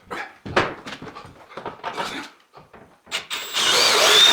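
A dog panting and whimpering in short bursts. Near the end comes a louder, high, wavering whine.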